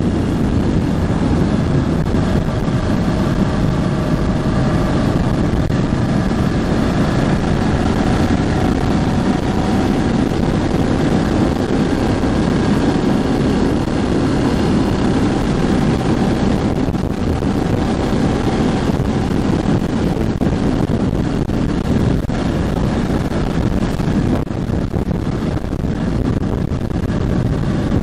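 Ducati Hypermotard 1100S's air-cooled L-twin engine running at a steady cruise while being ridden, with wind rushing over the microphone. The engine is being run in.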